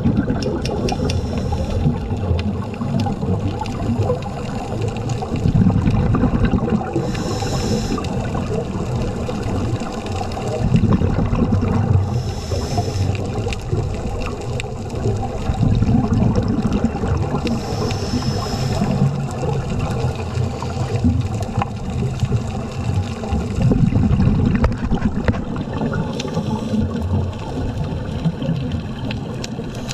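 Scuba regulator breathing recorded underwater: a surge of exhaled bubbles gurgling every five or six seconds, with a short hissing inhale between some of them, about three times.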